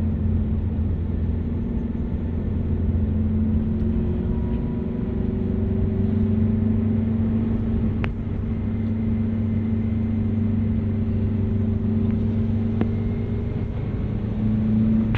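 A vehicle's engine running steadily under load as it climbs a mountain road, with a steady low hum.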